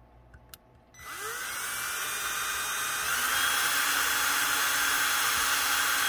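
Ryobi power drill spinning up about a second in and running steadily with a whine, then speeding up with a step in pitch about two seconds later, as it drills a pin hole into a small piece of wood with a stick pin chucked as the bit.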